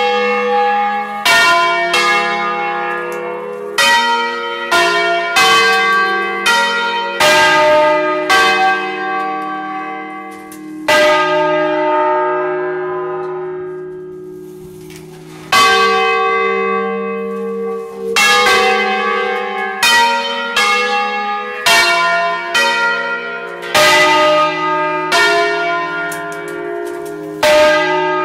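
Five tuned church bells in E-flat, cast by Achille Mazzola of Valduggia in 1951, swinging and sounding a full peal from the electric control unit. Strikes land irregularly, overlapping in long ringing chords. About halfway through they thin out to a single stroke that fades for several seconds, then the strikes pick up again.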